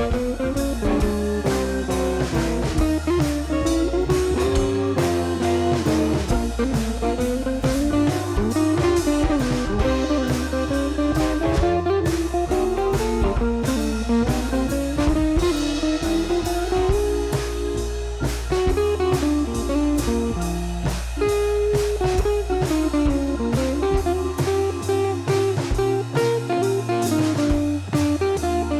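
Background music: blues-style guitar melody over bass and drums.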